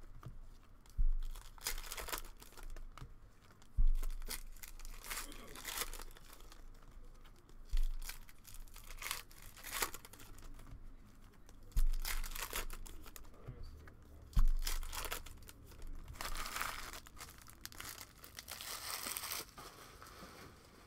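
Trading-card packs and box wrapping being torn open and crinkled, a rustle of paper and plastic that comes and goes, with about five sharp thumps of items knocked down on the table.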